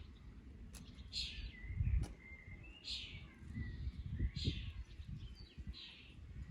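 A small bird chirping: short, high calls, one about every second and a half. Low thumps and rumble sit underneath, the loudest about two seconds in.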